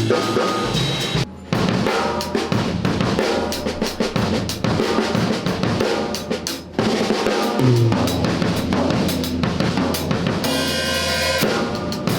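An acoustic drum kit being played by a non-drummer: drum and cymbal hits in quick succession, with the drums ringing between strokes.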